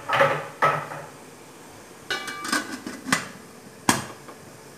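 Aluminium lid being fitted onto an idli steamer pot: a series of metal clanks and knocks, one cluster about two seconds in with a brief metallic ring, and a last sharp knock near the end.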